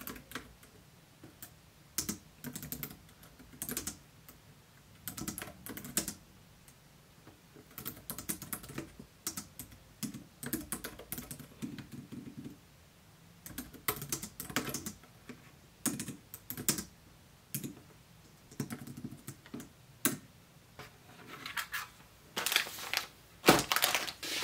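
Typing on the round keys of a Logitech K380 wireless keyboard, in short irregular bursts of clicks with pauses between. Near the end there is louder rustling and a knock as the keyboard is picked up and moved on the desk.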